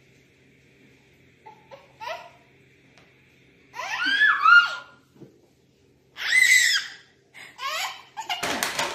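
A baby laughing and squealing in several bursts, starting about two seconds in. A short noisy clatter comes near the end.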